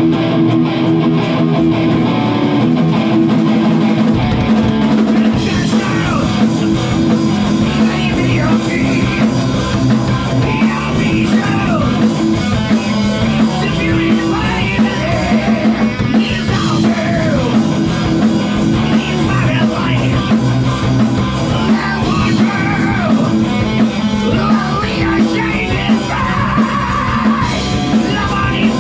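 Rock music with electric guitar, drums and singing.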